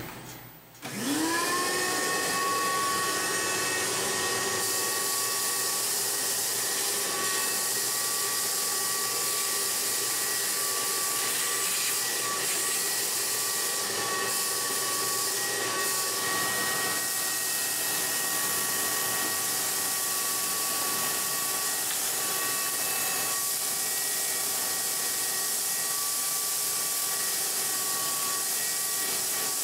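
Shop-Vac wet/dry vacuum with a Dust Deputy cyclone separator switched on about a second in: the motor's whine rises quickly and settles into a steady run with the hiss of rushing air, as it sucks up metal chips.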